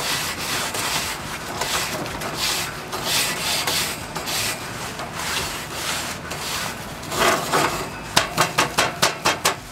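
Grill brush scrubbing the cooking grate of a Weber Go-Anywhere charcoal grill in repeated back-and-forth strokes, ending in a run of quick short strokes, about five a second, near the end.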